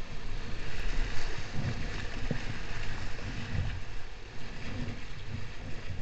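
Whitewater rapids rushing around a kayak, heard from a helmet camera, with wind buffeting the microphone as an uneven low rumble.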